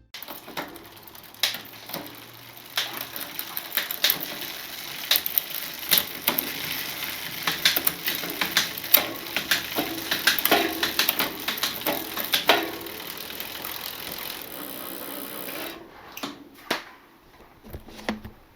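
Mountain bike 1x8 drivetrain cranked by hand while the rear derailleur is adjusted: the chain runs over the cassette with a steady rattle and many irregular sharp clicks, dying down about three seconds before the end, with a few last clicks.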